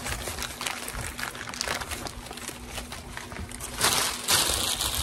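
Newspaper and a thin plastic shopping bag crinkling and rustling as a glass jar is unwrapped by hand, with a louder rustle about four seconds in.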